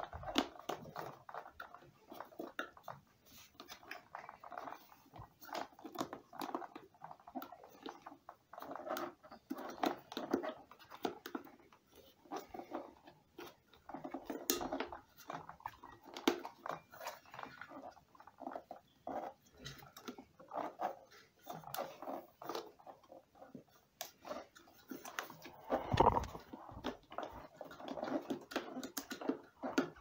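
Irregular plastic clicks, knocks and scraping as a new motor is worked by hand into the plastic housing of an Arnica Bora 4000 vacuum cleaner, with a heavier knock about 26 seconds in.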